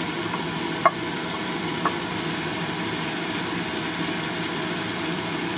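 Vegetables sizzling in a hot pan as carrots and green beans are scraped in from a plate and stirred with a wooden spoon, with two sharp knocks of the spoon about one and two seconds in. A steady low hum runs underneath.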